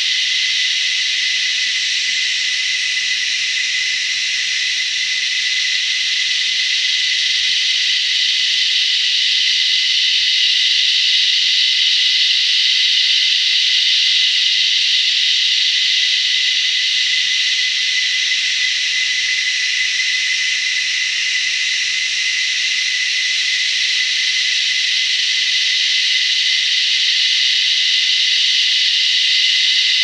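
Cicadas singing in a dense chorus: a loud, unbroken high buzzing hiss with one clear steady note running through it, swelling and easing slightly but never stopping.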